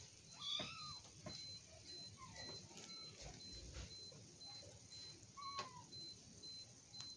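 Kittens mewing in short cries while they play-wrestle. There are a few brief calls, the loudest about half a second in and another near the middle.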